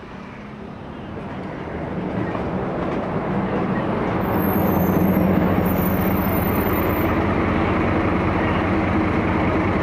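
City bus engine growing steadily louder as the bus pulls up close alongside, then running at a steady low drone while it stands at the stop.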